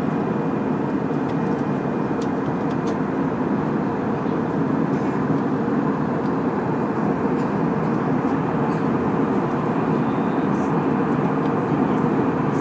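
Steady drone of a twin-engine turboprop airliner flying low overhead, mixed with the open-air noise of the city around it, growing slightly louder near the end.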